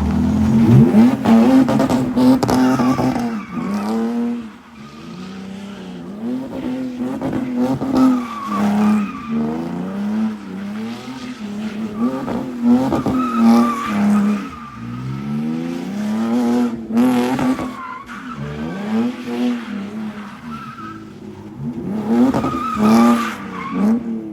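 A drift car's engine revving hard, its pitch rising and falling over and over as it drifts, with the tyres squealing.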